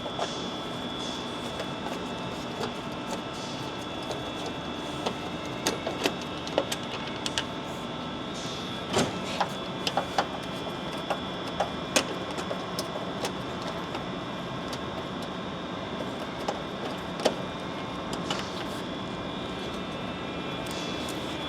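Scattered clicks and taps of Phillips screws being backed out of a truck grille with a screwdriver, over a steady background hum.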